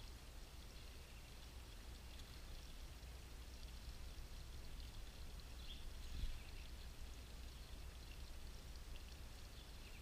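Faint outdoor ambience: scattered small-bird chirps over a steady low rumble, with a single low thump about six seconds in.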